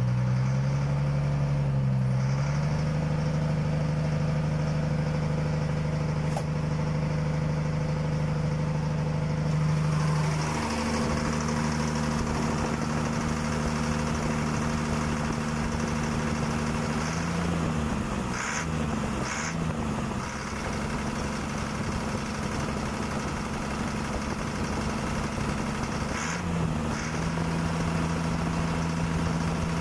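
A motor running steadily with an engine-like hum whose pitch shifts up or down several times. A few short, higher-pitched sounds come through in the second half.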